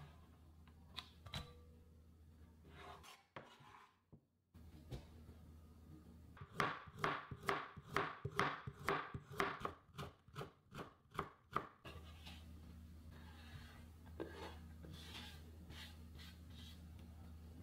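Chef's knife slicing a carrot on a wooden cutting board: a steady run of cuts at about three a second, each ending in a knock of the blade on the board. Near the end come softer scrapes as the cut carrot is slid off the board into a glass bowl.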